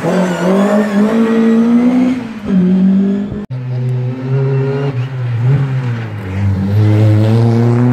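Rally car engines at full throttle: a Mk1 Ford Escort revving hard through a junction, its note rising and falling. After a cut about three and a half seconds in, a red MINI Cooper rally car accelerates toward the microphone, its engine note climbing steadily.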